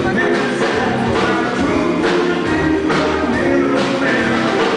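Live band playing with electric guitar, upright bass and drum kit, over a steady beat.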